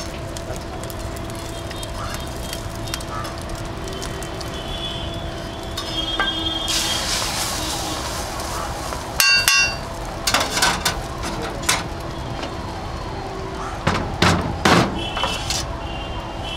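Steel ladle clinking and knocking against a large iron griddle, a sharp ringing clink about nine seconds in and several more knocks later, over a steady hiss of a paratha and egg frying.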